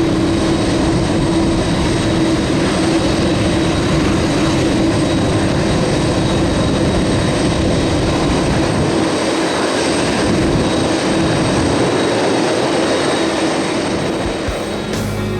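Boeing 767-300ER jet engines running, a steady loud rush with a held hum and faint high whines, easing slightly just before the end.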